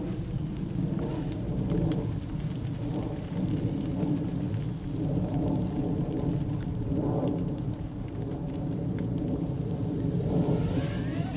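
Small 3-inch toothpick FPV quadcopter's motors buzzing in flight over a steady low rumble. Near the end the whine gets louder and rises in pitch as the quad passes close by.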